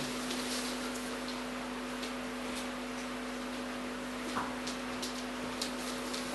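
Steady low hum with a fainter higher tone above it, with faint scattered taps of footsteps on a wooden floor as a group walks around.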